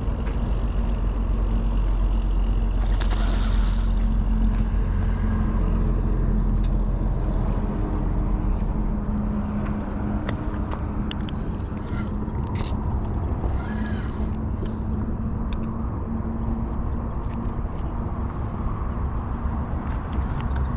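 Road traffic running steadily, a low rumble with a held engine hum, and a few small clicks and knocks scattered through it.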